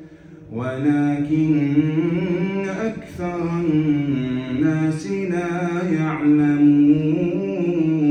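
A man reciting the Quran in a melodic, chant-like voice through a microphone, drawing out long held notes that slowly rise and fall. He takes a short breath about half a second in and pauses briefly about three seconds in.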